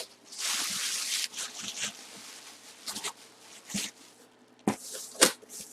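Rustling followed by a few sharp clicks and knocks, the sound of items being handled on a table.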